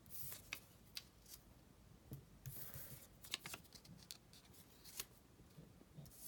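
Faint rustle of paper shape cut-outs being slid and shuffled across a whiteboard by hand, with several short swishes and light taps as pieces are set down.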